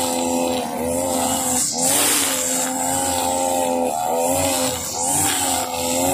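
Husqvarna 542RBS backpack brush cutter's two-stroke engine running near full throttle, its nylon trimmer line whipping through grass. The engine pitch sags briefly a few times as the line bites into the grass and picks back up.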